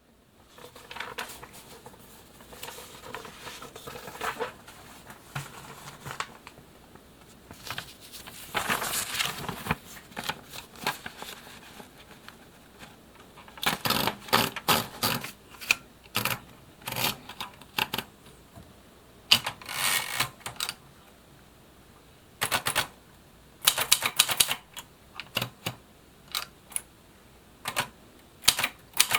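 Kyungbang Clover 950 typewriter, a 1979 model with a Hangul four-set keyboard and a tabulator, typing: keys striking in bursts of rapid clacks separated by short pauses.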